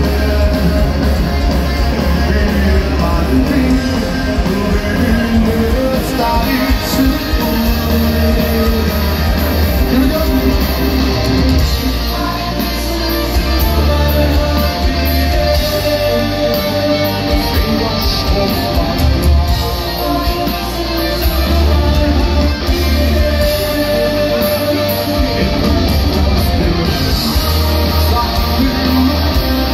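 Heavy metal band playing live, loud and continuous, with electric guitars and drums over a heavy low end, heard from within the crowd.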